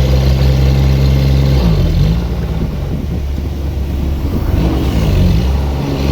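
A heavy engine running steadily, its pitch dipping and rising between about two and five seconds in.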